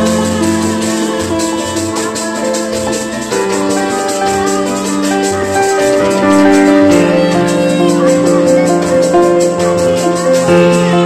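Live kuda renggong procession music from a tanji group: a keyboard melody of long held notes over a steady low drone, with gongs, drums and a fast, even rattling beat.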